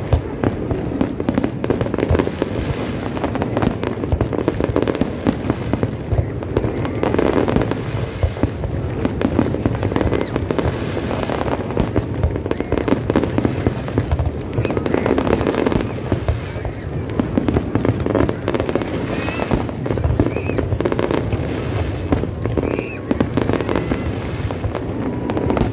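Aerial fireworks display going off in a dense, continuous run of bangs and crackles, with voices of the watching crowd beneath.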